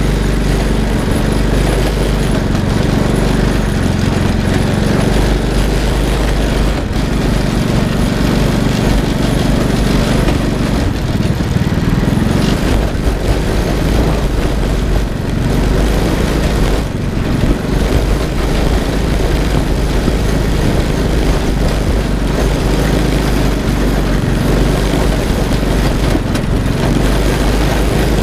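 Off-road go-kart buggy's small engine running steadily.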